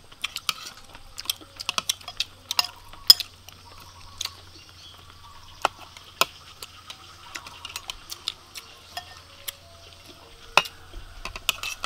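Metal spoons clinking and scraping against ceramic plates during a meal: a string of short, sharp, irregular clicks.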